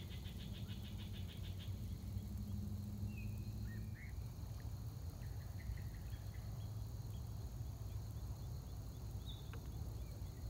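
Outdoor riverside ambience: a steady low rumble throughout, a rapid high trill that stops about two seconds in, and a few short bird chirps scattered through the rest.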